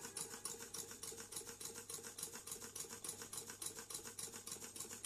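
Homemade Stirling engine running, its moving parts giving a faint, fast, even ticking of about eight clicks a second.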